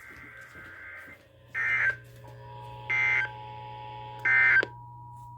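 Emergency Alert System end-of-message signal: three short warbling digital data bursts, about a second and a half apart, marking the end of the test. A steady two-note tone comes in under them about two seconds in.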